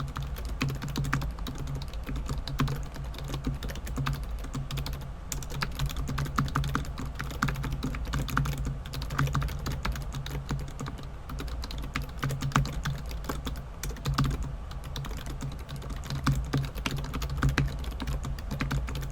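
Fast, continuous touch-typing on a Rapoo 8200p wireless keyboard at close to 100 words per minute: a dense, irregular patter of key clicks over a steady low hum.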